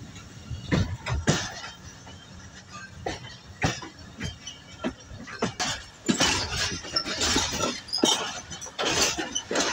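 Moving passenger train clattering, its wheels knocking over rail joints and a set of points in irregular metallic clanks. The clanks come thicker in the second half.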